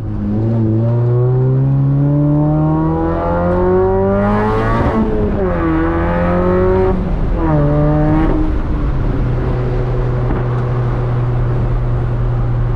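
2003 Mini Cooper S's supercharged four-cylinder with a full straight-pipe exhaust accelerating through the gears. It makes a long rising pull, then drops in pitch twice, about five and seven seconds in, as it upshifts, and settles to a steady cruise after about nine seconds.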